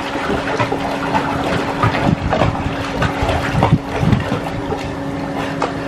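Water splashing irregularly as a swimmer kicks and strokes across a pool, over a steady low hum.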